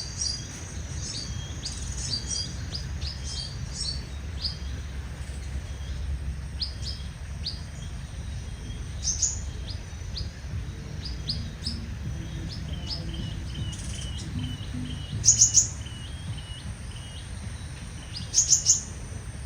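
Sunbirds chirping: short, high, sharp calls scattered throughout, a quick run of repeated notes around the middle, and a few louder rapid chirp bursts in the second half, over a steady low rumble.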